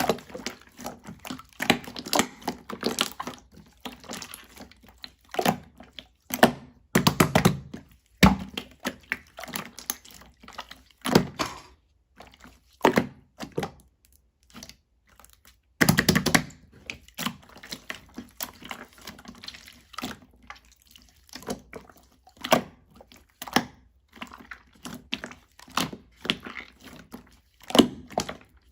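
Purple slime being played with by hand: an irregular run of sticky clicks, pops and soft plopping thuds, with a few louder, longer squishes about 7 and 16 seconds in.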